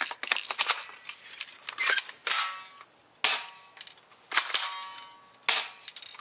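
Cheap spring-powered airsoft sniper rifle being handled and worked: a quick run of plastic clicks and rattles, then sharp snaps about once a second, each followed by a brief metallic ring.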